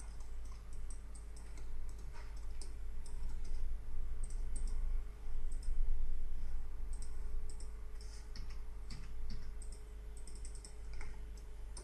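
Irregular clicking of a computer mouse and keyboard, some clicks in quick pairs, over a steady low hum.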